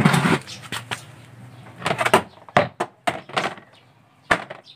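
Clothes being hand-rinsed and handled in plastic washbasins: a series of short splashes and sloshes of wet laundry, with a sharp knock near the end.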